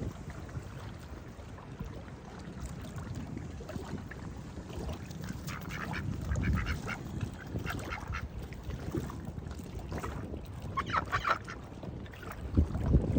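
Ducks quacking in two runs of short calls, one about five to seven seconds in and another near eleven seconds, over wind rumbling on the microphone.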